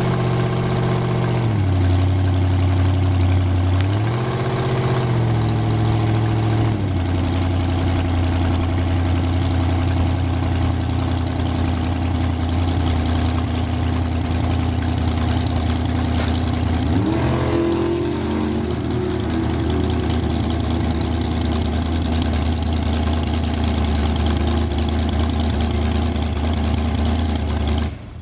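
Dragster engine running loudly at a low idle while the car rolls slowly. The engine speed dips, rises and settles a few times, with a brief throttle blip partway through.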